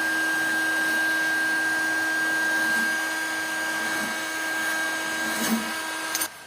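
Electric heat gun running steadily with a high, even whine from its fan motor, switched off with a click about six seconds in.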